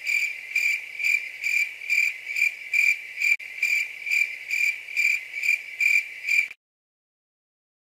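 Cricket chirping sound effect: a steady high chirp pulsing evenly about two and a half times a second, cutting off suddenly about six and a half seconds in. It is the stock "crickets" gag marking an awkward silence.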